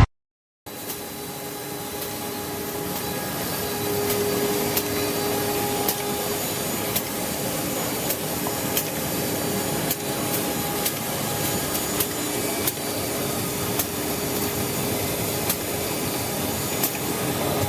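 CNC six-sided panel drilling machine running: a steady machine hum with a light whine, broken by many short, sharp clicks and knocks.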